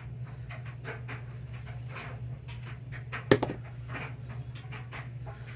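Paper and fabric scraps being handled and laid on a journal page: light rustles and small taps, with one sharp tap a little past halfway, over a steady low hum.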